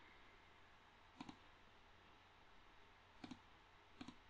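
Three faint computer mouse clicks over near-silent room tone, the first about a second in and two more near the end.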